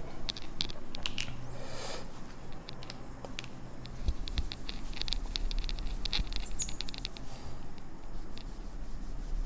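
Cloth rubbing across a glass lightboard to erase marker writing: a rapid run of scratchy wiping strokes and small ticks.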